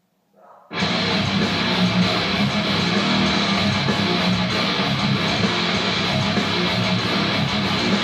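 Guitar-driven rock music kicking in abruptly just under a second in, then running loud and dense.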